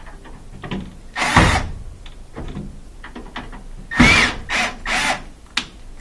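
Cordless drill-driver backing out a small Torx screw in short trigger bursts: one brief spin about a second in, then several quick spins near the end, one with a short rising-and-falling whine. Light clicks of the tool against metal come in between.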